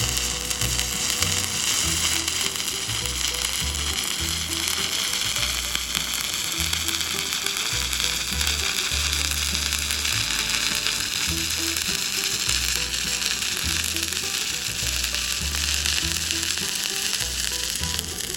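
Stick welding arc crackling and sizzling steadily as a bead is run in the flat (1G) position, over background music with a low, regular beat.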